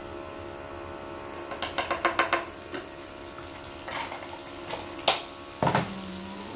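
Omelette egg mixture frying in hot oil in a pan, a steady sizzle, with a quick run of sharp clicks about two seconds in and a couple of single knocks of a utensil on the pan later.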